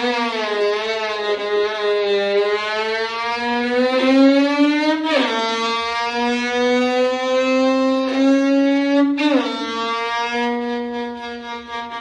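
A voice imitating a motorcycle engine: long held tones that climb slowly in pitch, dropping back twice like gear changes before climbing again.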